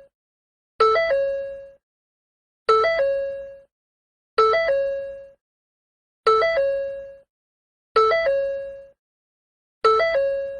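Ford door chime repeating about every two seconds, six times. Each is a quick two-note electronic ding with a short step up in pitch that fades out within a second.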